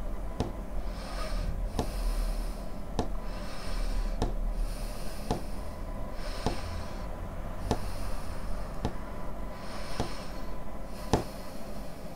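A person's breathing, each breath a hiss lasting about a second, over a sharp tick that repeats about once a second.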